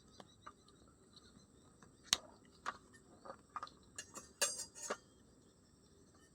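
A few sharp clicks and knocks of hard objects: a single one about two seconds in, a couple more, and a quick cluster of four or five near the end.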